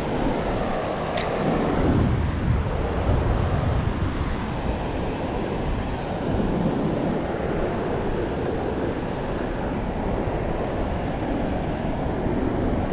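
Ocean surf breaking on a beach, with wind buffeting the microphone: a steady, even noise throughout.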